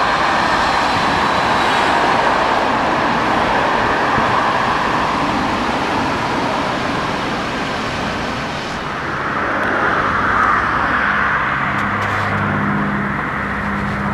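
Steady city road traffic noise from passing cars. A low, steady hum joins in near the end.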